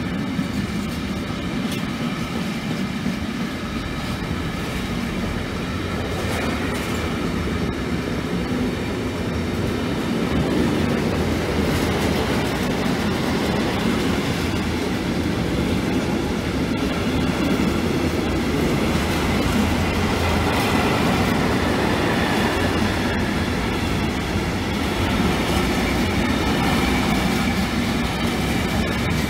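Long intermodal freight train of container flat wagons rolling past, with a continuous rumble and clatter of wheels on the rails. It grows a little louder about ten seconds in, with faint steady high tones over the rumble.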